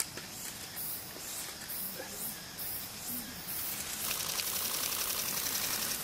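Insects shrilling: a high, pulsing buzz in short repeated bursts, with a louder, steadier rasping trill joining about four seconds in.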